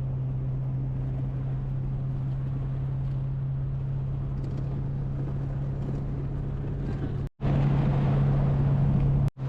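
A 1970 VW Bus's air-cooled flat-four engine running at a steady cruise with road noise, a constant low drone. The sound breaks off briefly twice near the end and is louder for about two seconds in between.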